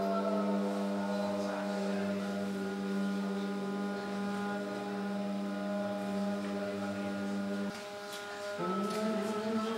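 Background music of long held, chant-like tones over a steady low drone. It breaks off about three-quarters of the way through and comes back on a higher chord near the end.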